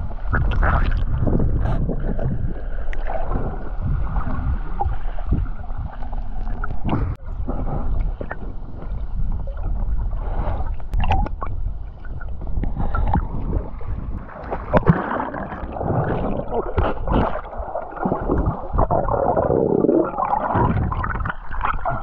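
Swimmers moving through water, heard underwater: a muffled rush with bubbling and many small knocks and taps, busier near the end as a swimmer comes up close in a cloud of bubbles.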